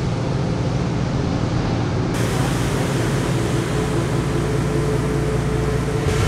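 Steady noise of storm surf breaking on the beach, heavy swell whipped up by a hurricane.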